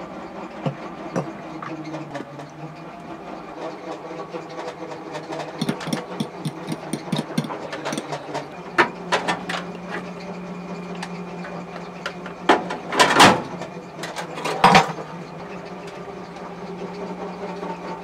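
Galley cooking sounds: a run of quick clicks and taps as eggs are handled and worked in a dish, then two loud metal clatters at the stove, about thirteen and fifteen seconds in. A steady low hum runs underneath.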